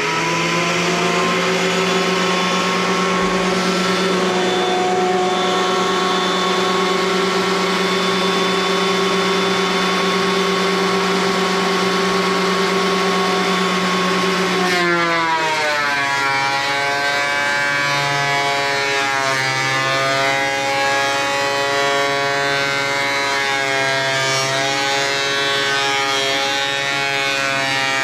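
Craftsman thickness planer's motor running with a steady whine, then about halfway through dropping in pitch and wavering as a board feeds through and the cutterhead takes load.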